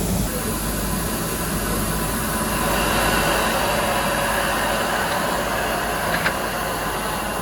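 Nilgiri Mountain Railway steam locomotive with a steady hiss of steam as it comes up to couple onto the coaches. The hiss swells about two and a half seconds in, and a single sharp knock comes about six seconds in.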